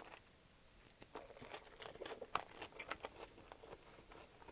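Close-miked chewing of a mouthful of crusty sub sandwich, the crisp bread crunching between the teeth. The crunches start about a second in and come thick and fast, the loudest a little past the middle.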